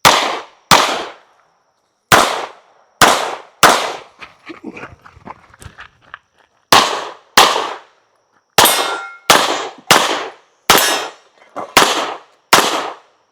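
A competitor's string of rapid gunshots on a practical shooting stage, about thirteen shots, mostly in quick pairs, with a pause of about three seconds near the middle.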